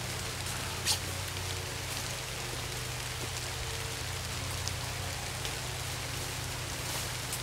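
Steady rain falling on foliage, an even hiss, with one short sharp tap about a second in.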